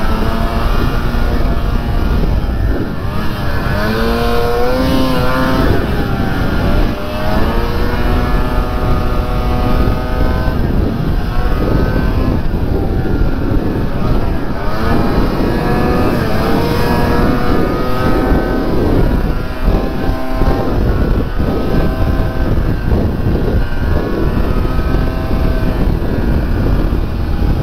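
Snowmobile engine running as the sled is ridden along a trail. Its pitch rises and falls again and again as the throttle is worked.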